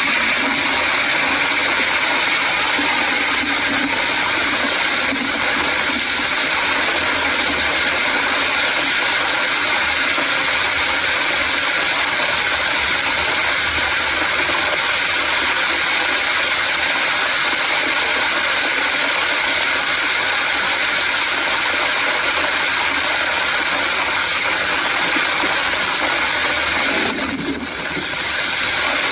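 Heavy rain hitting a moving vehicle's windshield and body, a steady hiss mixed with the vehicle's running and wet-road noise. It dips briefly about 27 seconds in.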